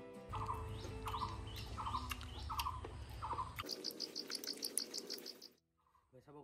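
Bird chirping: five repeated calls about 0.7 s apart, then a fast run of high chirps, about six a second. It cuts off suddenly a little past halfway.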